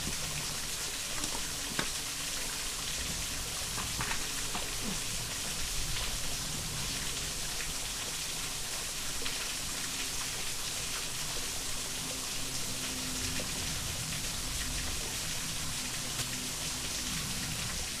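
Steady hiss of a shallow creek's water running over a rocky bed, with a few faint clicks of footsteps on loose shale.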